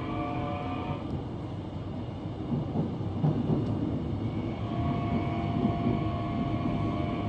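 Seoul Subway Line 2 electric train running along the track, with a steady rumble of wheels on rail. A thin electric whine of several steady tones over it drops out about a second in and returns a little past the middle.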